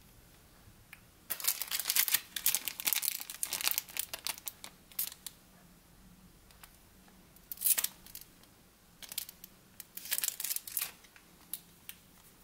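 Thin clear plastic wrapping crinkling as it is handled and pulled off, in crackly bursts: a long stretch from about a second in, a short burst in the middle, and another cluster near the end.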